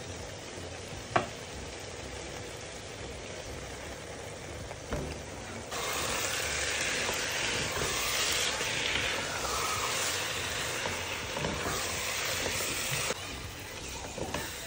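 Chicken masala gravy sizzling in a non-stick pan as chopped fresh fenugreek (methi) leaves are stirred in with a wooden spatula. About six seconds in, the sizzle and the stirring grow louder, then ease off near the end.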